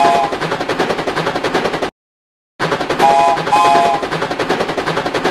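Steam train sound effect: fast, even chuffing with a chord whistle blown in two short blasts. It cuts out for about half a second near two seconds in and starts over, whistle and all.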